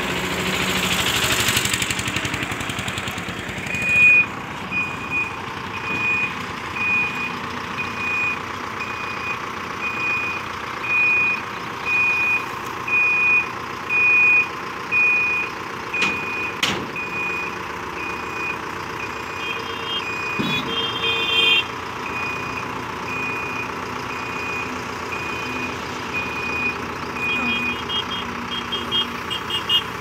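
Backhoe loader's reversing alarm beeping about once a second over its running diesel engine as the machine backs up. The beeping starts about four seconds in and stops near the end.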